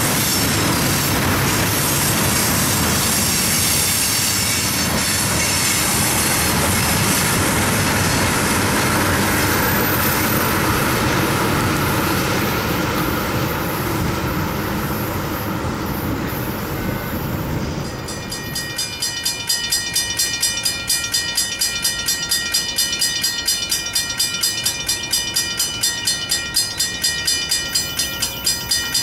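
Freight train cars rolling past, a steady rumble and rattle of wheels on rail. About 18 s in this gives way to a grade-crossing bell ringing in rapid, even strikes, the crossing gates down for an approaching train.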